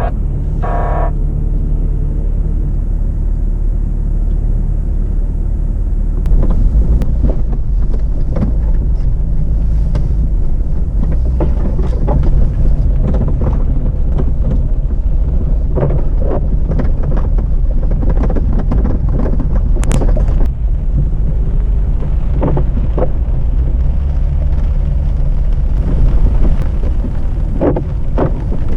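An off-road 4x4 driving a rough track: a steady low engine and drivetrain rumble with frequent knocks and jolts from the bumpy ground.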